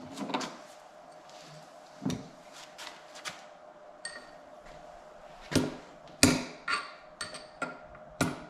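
Ball-peen hammer striking a steel punch to drive a bearing into a World Class T5 transmission case: about ten sharp metal taps at uneven intervals, harder in the second half, one with a brief metallic ring about four seconds in.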